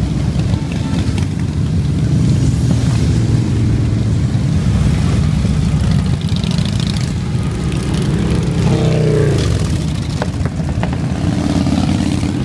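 A stream of big V-twin motorcycles, Harley-Davidson touring bikes and a custom chopper, rumbling steadily as they ride past. About nine seconds in one passes close, its engine pitch dropping as it goes by.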